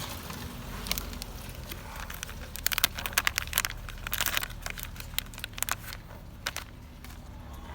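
Small parts of a boost pressure sensor being handled and fitted by hand: a run of light clicks and rustles, densest from about 2.5 to 4.5 seconds in, with a few single ticks after, over a steady low hum.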